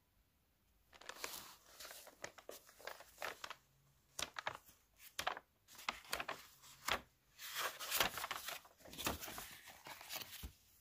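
Pages of a thick art journal being turned and flipped, the paper rustling and flicking many times in quick succession from about a second in.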